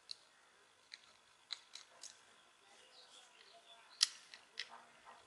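Faint, scattered sharp clicks and light scraping of a small precision screwdriver and tiny screws against a plastic headset case as the screws are taken out, with the loudest click about four seconds in.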